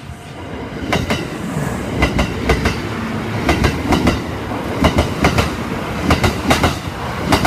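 Kintetsu Osaka Line train's wheels clattering over rail joints. The clacks come in close pairs, repeating every half second to a second over a running rumble that builds in the first second.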